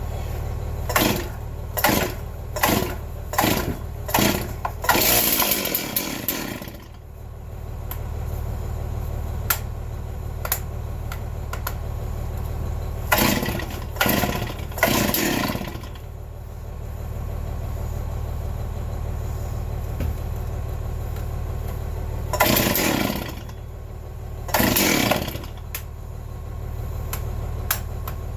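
Stihl MS360 two-stroke chainsaw being pull-started cold after sitting a long time: a quick run of starter-rope pulls in the first few seconds, then a longer sputtering burst, and more pulls with short bursts later on, the saw not yet catching and running. A steady low hum runs underneath.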